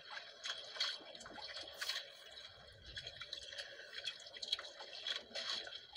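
Sea water lapping and splashing against the hull of a small outrigger boat, in irregular little splashes and drips.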